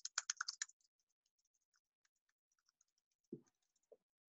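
Typing on a computer keyboard: a quick run of about eight keystrokes in the first second, then fainter, scattered key clicks. A short low sound a little after three seconds in.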